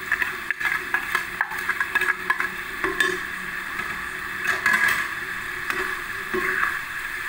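A metal spatula clicks and scrapes in a pan while stirring tempeh, with many quick taps in the first few seconds and a few later. Underneath, the sweet soy sauce sizzles steadily as it cooks down.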